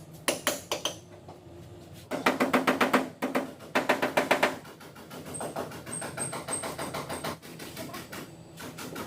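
Rapid light hammer taps on a car body panel, at about ten a second, in two short runs, followed by softer, quicker tapping: knocking down the high spots of a dent during paintless dent repair.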